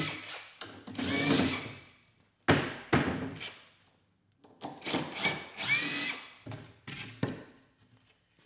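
Cordless drill backing screws out of a plywood crate in several short runs, its motor whining up and down in pitch, with a few sharp knocks of wood.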